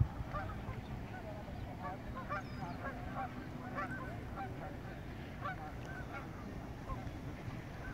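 A flock of geese honking on the lake: many short overlapping calls, busiest in the first half and thinning out towards the end, over a low steady rumble.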